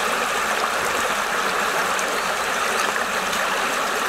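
Shallow stream running fast over a stony riffle right at the microphone: a steady, even rush of water.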